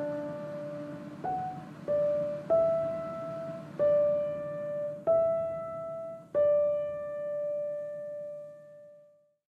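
Background piano music: slow, separate notes, six of them, each ringing and fading before the next; the last note dies away to silence near the end.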